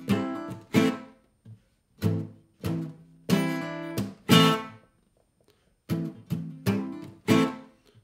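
Acoustic guitar strummed with a pick on an A minor chord, in a rhythm of short strums that are choked off quickly by releasing the fretting hand. The pattern mixes bass-string strums, a hammer-on and a muted hit, and breaks off for about a second midway before starting again.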